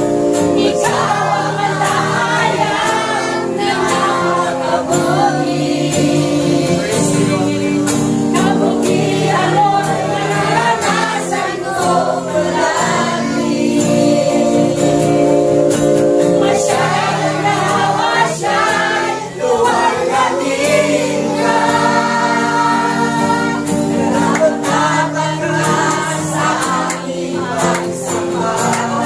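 A congregation singing a Filipino worship song together over backing music.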